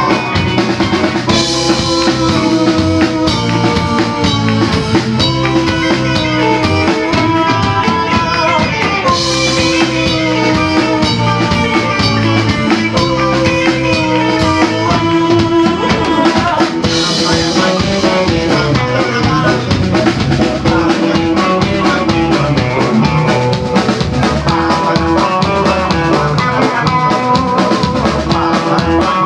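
Live rock band playing: drum kit with a steady beat, electric guitars and a Nord Electro 4 stage keyboard. Crash cymbals hit about every eight seconds.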